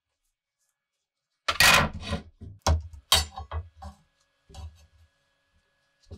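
Clatter of an antique Koser sickle's metal blade and its new wooden handle knocking on a wooden workbench as they are handled and laid together: one loud clatter about a second and a half in, then several lighter knocks and clinks.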